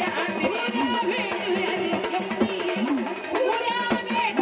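Live jagran gondhal folk music: a woman singing with a wavering, ornamented melody over steady hand-drum accompaniment.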